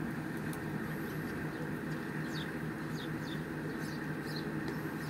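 Several short, high, downward-sliding bird chirps, most of them between about two and three and a half seconds in, over a steady low hum and outdoor background noise.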